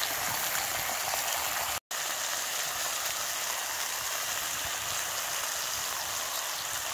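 Bacon and potato cakes sizzling steadily in a Petromax SP32 wrought-iron skillet, with a brief break in the sound just under two seconds in.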